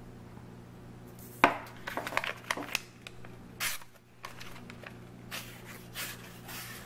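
D2 steel blade of a Two Sun TS39 flipper knife making a series of short cuts through a material in push-cutting strokes, showing the edge is very sharp. A sharp click comes about a second and a half in, followed by clusters of quick rasping cuts.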